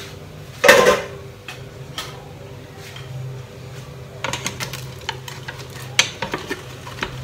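A metal pot lid is set down with a single loud clatter about a second in. Near the end, crinkling aluminium foil and a wooden utensil knock and scrape against the aluminium steamer pot in a quick run of clicks.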